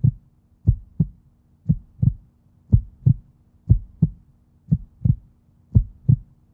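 Heartbeat: steady lub-dub pairs of low thumps, about one beat a second, six beats in a row.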